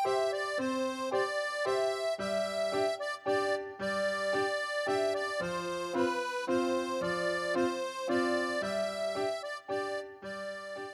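Background music: a reedy, accordion-like keyboard tune playing chords in a steady, even rhythm, fading out near the end.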